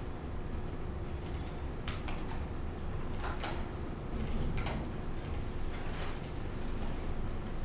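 Irregular light clicks and taps, roughly one every half second to a second, over a low steady hum.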